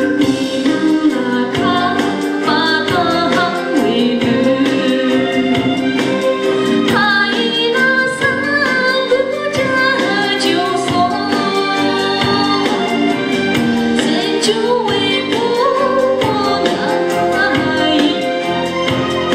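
A woman singing a solo song into a microphone over musical accompaniment of sustained keyboard chords and a steady beat.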